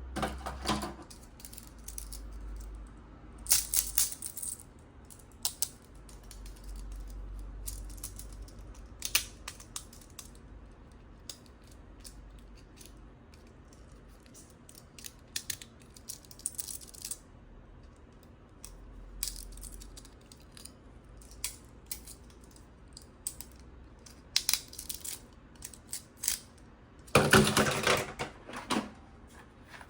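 Plastic toy blaster and its packaging being handled: scattered light clicks, rattles and rustles, with a longer, louder rustling burst near the end.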